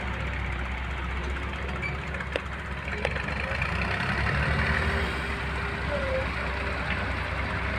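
Diesel engines of an excavator and tractor running steadily while soil is loaded into a trolley, with two sharp knocks a little over two and three seconds in.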